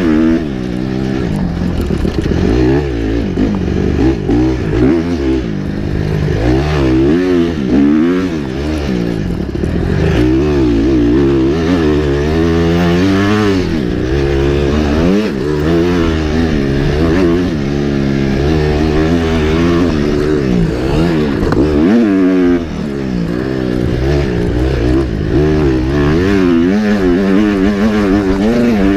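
Dirt bike engine revving up and down over and over as it is ridden round a motocross track. The pitch climbs with each burst of throttle and drops back between them, heard close up from the bike's handlebars.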